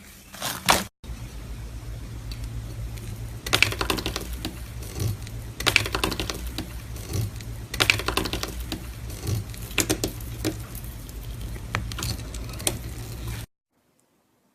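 Slime being squeezed and poked, making bursts of small crackling clicks and pops about every two seconds over a steady low hum. The sound cuts off suddenly near the end.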